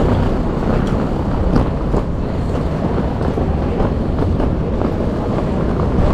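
Passenger train running on the rails: a steady low rumble with a few faint clicks from the wheels.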